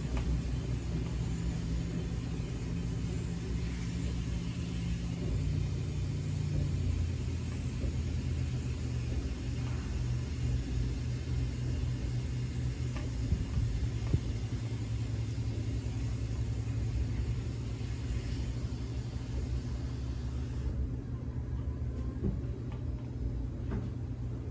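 A steady low motor hum, shifting pitch once about five seconds in, under a light hiss that drops away about 21 seconds in.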